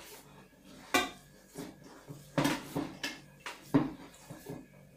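Hands kneading a stuffing of minced beef, chicken and rice in an enamel basin: soft wet working of the mixture broken by several sharp slaps, the loudest about a second in and near the four-second mark.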